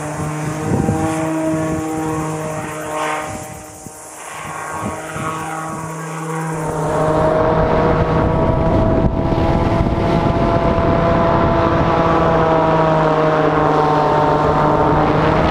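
Propeller engine of a tethered Fly By Wire craft running steadily with a droning whine. It dips and comes back as the craft swings past, then about six seconds in it turns louder and close, with air rushing past the craft.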